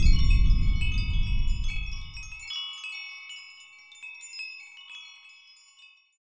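A shimmering cascade of high, tinkling wind-chime tones over a deep rumble. The rumble stops abruptly about two and a half seconds in, and the chimes fade away to nothing by about six seconds.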